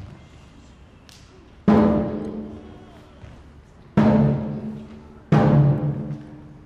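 Large Chinese barrel drum struck three times, about a second and a half in, at four seconds and again just over a second later. Each beat is a deep boom that rings on at a steady pitch and slowly fades.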